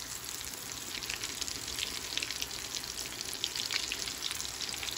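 Hot oil sizzling steadily around egg-and-breadcrumb-coated eggplant slices frying in a pan, with many small crackling pops.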